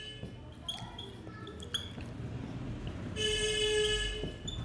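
Marker squeaking on a whiteboard as words are written. There are short squeaks in the first two seconds, then a longer, louder high squeak lasting about a second near the end.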